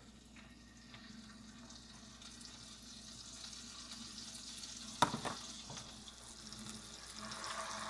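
Bluegill fillets frying in a pan of hot vegetable oil and butter: a soft sizzle that grows steadily louder, with one brief knock about five seconds in.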